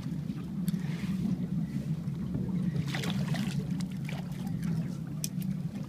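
Outboard motor idling with a steady low hum, with a few brief ticks about three and five seconds in.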